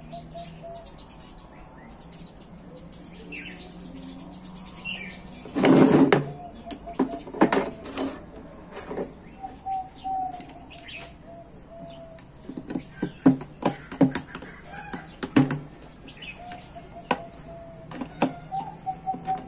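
Clicks and knocks of square steel tubing and steel corner plates being handled on a workbench, with one loud clatter about six seconds in. Near the end, a hand pop-rivet gun clicks as it sets a rivet into a corner plate. Short chirps sound in the background.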